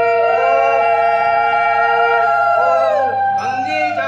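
Several conch shells blown together in long, overlapping held notes, each bending in pitch at its start and end and dying away about three seconds in.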